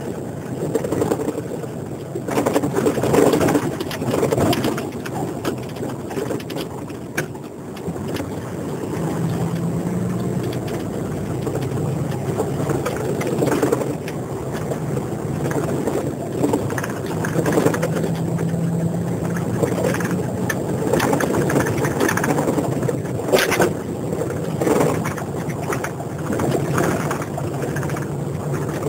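Engine drone and road noise heard inside the cabin of a moving vehicle, with a few sharp knocks from bumps in the road.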